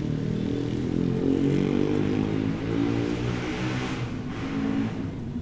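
Street traffic: vehicle engines running steadily, with one vehicle passing close by, its engine and tyre noise swelling about a second and a half in and fading out near four seconds.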